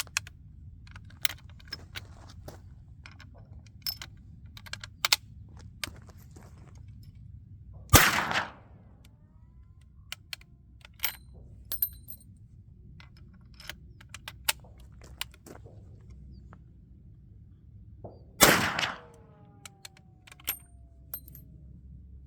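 Two rifle shots from a Springfield Model 1884 trapdoor rifle in .45-70, about eight seconds in and near the end, ten seconds apart. Between them come scattered sharp metallic clicks and clacks as the single-shot trapdoor action is opened and reloaded.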